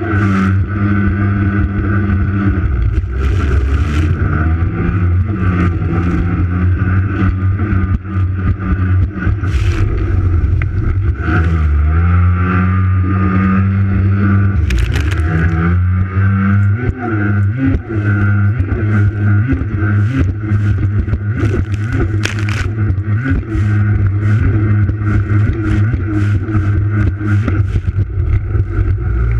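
Racing jet ski's engine running hard at high revs, close up. Its pitch drops and climbs back about twelve seconds in and again around seventeen seconds, with scattered sharp knocks and splashes over the steady engine sound.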